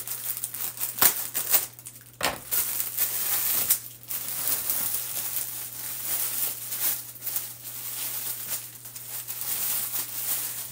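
Clear plastic packaging crinkling and rustling as a bag of flocked clothes hangers is opened and handled, with a couple of sharp clicks about one and two seconds in.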